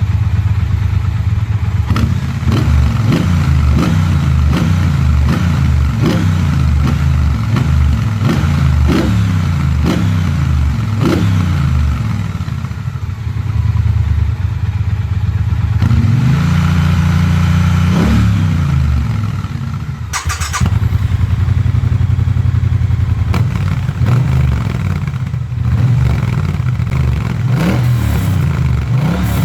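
Triumph Bobber Black's 1200 cc parallel-twin exhaust, revved repeatedly in quick blips and then held in a longer rev and let fall, with more running and smaller blips after a short break about twenty seconds in.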